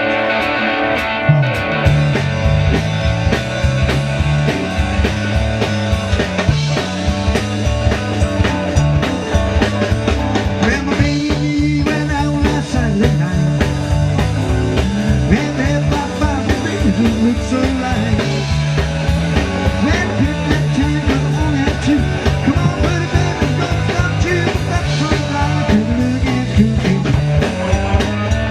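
Rock band playing an upbeat number with drum kit, electric guitar and a stepping bass line.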